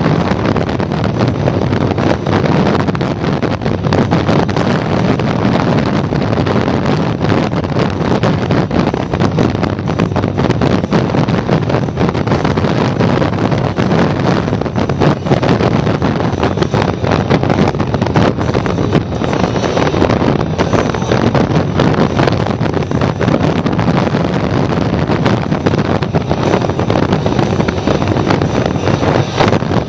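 Steady wind rushing and buffeting over the microphone of a vehicle moving at road speed, with the drone of engine and road noise underneath.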